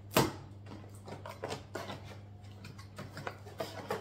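Cardboard retail box being opened by hand: a sharp knock just after the start, then scattered light scrapes and clicks as the flaps are pulled open, over a steady low hum.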